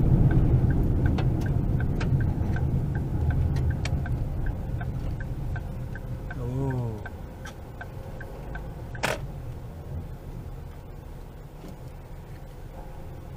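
Car driving on a dirt road, heard from inside the cabin: tyre and road rumble, loudest at first and fading as the car slows. Over it runs a steady light ticking, about three or four ticks a second, that stops about nine seconds in. There is a brief wavering squeal about six and a half seconds in, and a single knock about nine seconds in.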